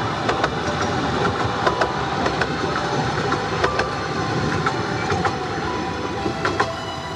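Ravenglass and Eskdale Railway miniature train running along the track: a steady rumble with wheels clicking sharply over the rail joints, fading a little near the end.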